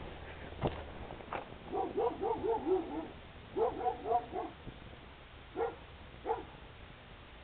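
A dog barking in two quick runs of short barks, then two single barks. Two sharp cracks come before the barking.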